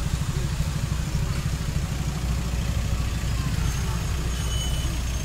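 Steady low rumble of city traffic with the general noise of a busy street.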